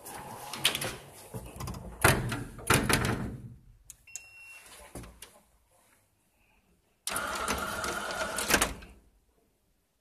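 Clattering and two loud knocks in the first few seconds, a short electronic beep about four seconds in, then a small elevator's automatic inner doors sliding shut with a steady whir lasting about two seconds.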